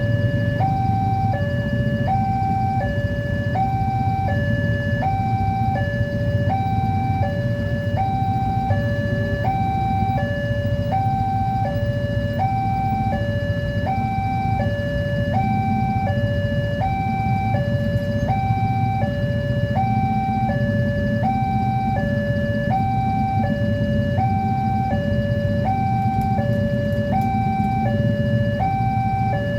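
Railway level-crossing warning alarm sounding continuously, an electronic two-tone signal that alternates high and low about once every two-thirds of a second. This is the signal that a train is approaching and the barriers are down. A steady low rumble runs underneath.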